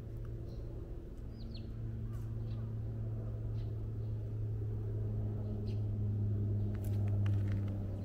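Steady low mechanical hum, with a few short high bird chirps in the first couple of seconds and some faint clicks near the end.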